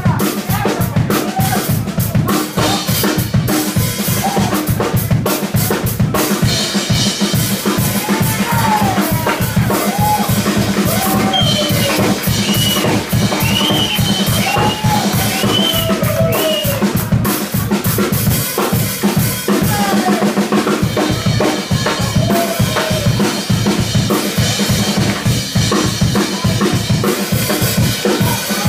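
Live blues-rock band playing an instrumental passage: a drum kit keeps a steady, busy beat under electric bass, while an electric guitar plays notes bent up and down through the middle.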